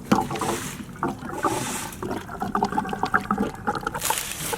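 Liquid fuel-system cleaner glugging and splashing out of a bottle as it is poured into the car's fuel filler, with irregular gurgling tones and small clicks.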